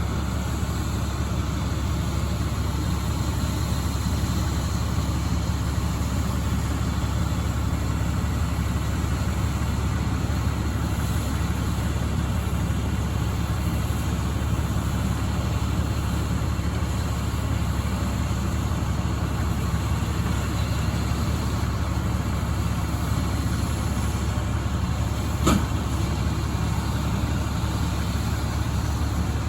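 Vehicle engine running steadily, heard from inside the cab as a constant low rumble, with a single sharp click about 25 seconds in.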